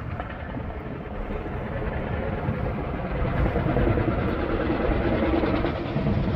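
Helicopter flying, its rotor beating, the sound growing louder over the first four seconds and then holding steady.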